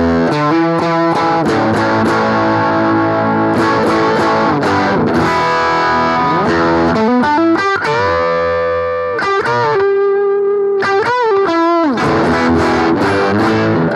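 High-gain distorted electric guitar played through a BOSS GT-1000 amp modeller, with a stereo compressor on at the end of the chain. Strummed chords give way around the middle to held lead notes bent up in pitch and shaken with vibrato, then chords again.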